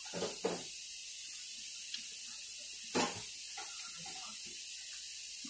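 Steady hiss with a few soft mouth and chewing sounds of someone eating fruit, the loudest a short smack about three seconds in; the hiss cuts off suddenly at the end.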